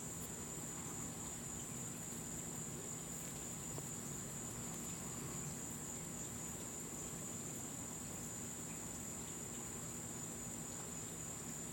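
Crickets chirring in a steady, faint, high-pitched chorus.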